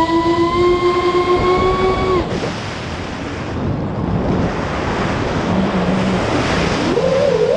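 FPV drone motors whining as the pitch climbs and then holds, cutting off about two seconds in. A rush of wind noise follows, and near the end the motors whine again with the pitch rising and falling.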